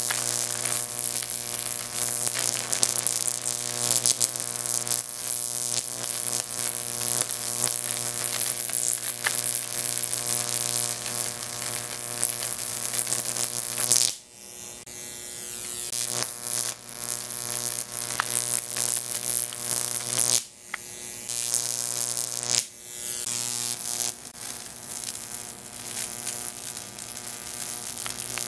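Jacob's ladder high-voltage arc, fed by a 15,000-volt neon sign transformer, buzzing and crackling with a steady electrical hum as it climbs the copper-rod electrodes. About halfway through and twice more near the end, the sound drops off suddenly and then builds back up as the arc breaks at the top and re-strikes at the narrow gap below.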